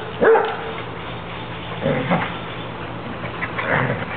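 A dog barks once, a loud bark falling in pitch, just after the start, ending a quick run of barks. Softer, scattered yelps follow as the dogs play.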